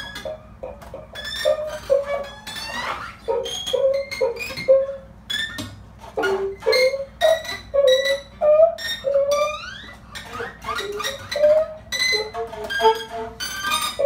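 Free improvisation on trumpet, alto saxophone and acoustic guitar: short broken notes and plucks, with quick rising glides about three seconds in and again near ten seconds.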